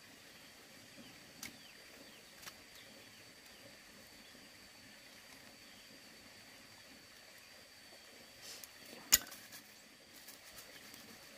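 Quiet rural outdoor ambience with a steady thin high-pitched tone and faint scattered chirps. A few light knocks, and one sharp knock about nine seconds in.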